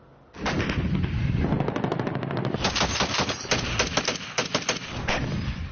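Rapid automatic weapons fire in long, dense bursts, starting about a third of a second in.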